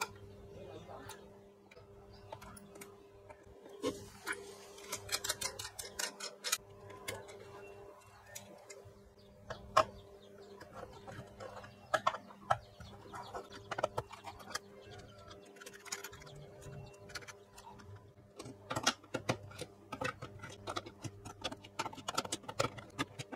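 Small metallic clicks and ticks from knobs being pulled off a speaker's metal control panel and the retaining nuts of its potentiometers and jacks being loosened with a wrench and nut driver. The clicks come in clusters, a busy run about four to seven seconds in and another in the last five seconds, over a steady low hum.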